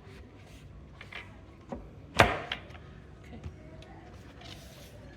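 Bed-frame panels being handled and fitted: light rubbing and a few scattered knocks, with one sharp, loud knock about two seconds in.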